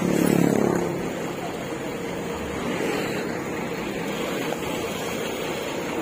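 Diesel engine of a Mercedes-Benz coach idling with a steady hum, swelling louder for about the first second.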